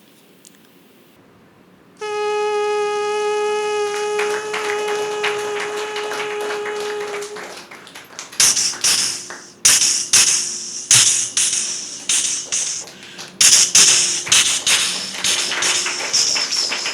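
Mouth-made imitation of a train. About two seconds in, a steady horn-like whistle is held for about five seconds. It is followed by a run of hissy chuffs, about two a second, like a steam engine chugging.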